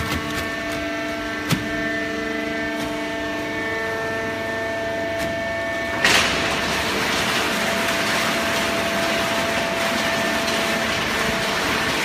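Hydraulic horizontal cardboard baler running: its motor and hydraulic pump give a steady hum of several even tones, with a single click about a second and a half in. About six seconds in there is a sharp clack, and a louder, even rushing noise takes over.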